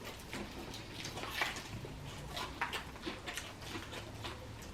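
Eating sounds: fried chicken being chewed and handled, with scattered small crunches and clicks at irregular moments.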